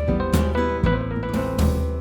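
Background music with a steady beat: drums, guitar and piano.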